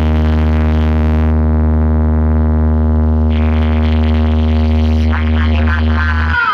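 A single synthesizer bass note held steady and loud on a DJ sound-check track, with a buzzy upper edge that goes dull for about two seconds in the middle and then opens up again.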